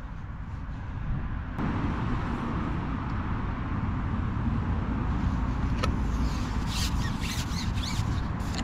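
A steady low outdoor rumble that grows louder about a second and a half in, with a single sharp click midway and a few short high chirps near the end.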